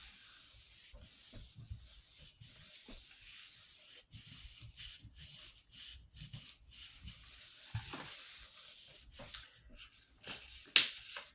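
Sheet of print paper being rubbed down over an inked gel plate to transfer the print: a dry, hissing rub in repeated strokes about a second long, with a sharper, louder rustle near the end.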